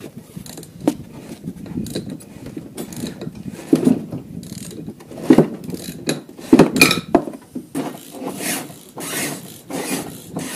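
Buran snowmobile being hauled by hand over wooden floor planks: its rubber track and bogie wheels make irregular clanks, knocks and scraping, with louder thumps about four, five and a half and seven seconds in.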